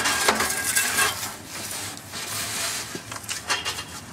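Metal parts of a dismantled water heater scraping and clattering as they are handled, in a few rough stretches with light knocks near the end.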